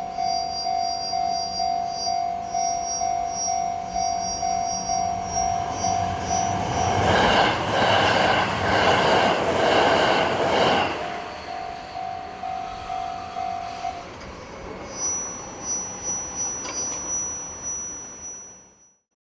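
Japanese level-crossing alarm ringing with a steady, regular pulse while a Sanyo Electric Railway train rushes through the crossing, loudest from about 7 to 11 seconds in. The alarm stops about 14 seconds in, and the sound fades out near the end.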